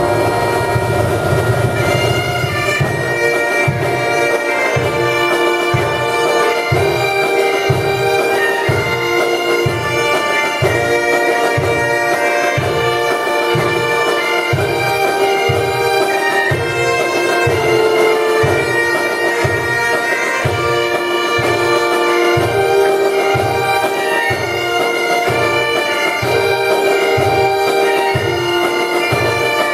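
Bagpipe playing a melody over its steady drones, with a regular low beat entering about two seconds in at roughly one and a half beats a second.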